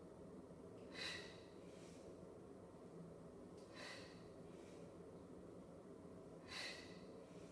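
A person's short, sharp breaths out, three of them about two and a half seconds apart, over faint room tone: exertion breathing in time with exercise repetitions.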